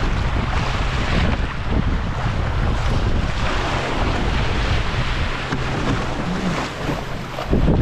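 Wind buffeting a head-mounted camera's microphone, with the rush and splash of choppy water along a small wooden proa's hull as it sails. A steady, even noise with a heavy low rumble.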